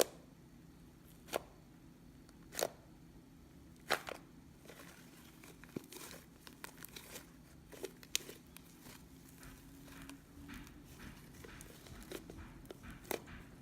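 Fluffy shaving-cream slime being handled: sharp pops about every second and a half at first, then a run of small quick crackles as it is squeezed and stretched.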